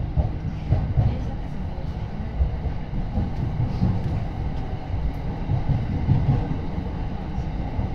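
Yokosuka Line commuter train running, heard from inside the passenger car: an uneven low rumble of wheels on rails that swells and eases.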